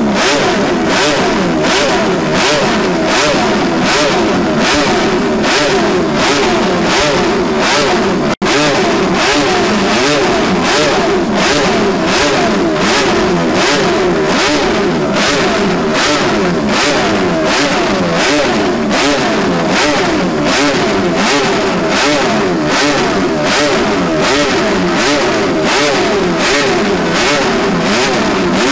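Honda 247cc six-cylinder racing motorcycle engine being revved on the spot, loud, with its revs rising and falling in a steady rhythm, roughly every half second. The sound cuts out for an instant about eight seconds in.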